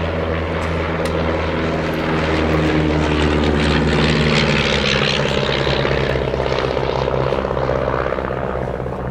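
De Havilland Chipmunk's four-cylinder Gipsy Major piston engine and propeller passing overhead. It grows louder to a peak about four seconds in, then drops slightly in pitch and fades as it flies away.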